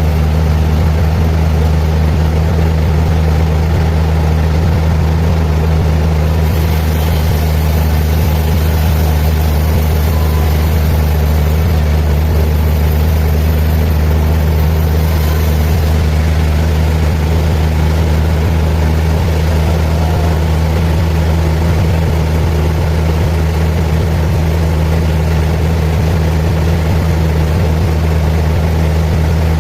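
Sawmill machinery running with a steady, unchanging low drone, with no distinct cuts or impacts.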